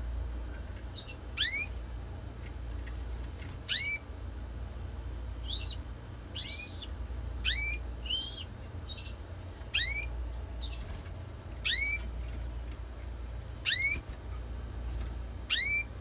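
Canary giving a short, sharp call note that sweeps upward, repeated about every two seconds, with softer chirps in between.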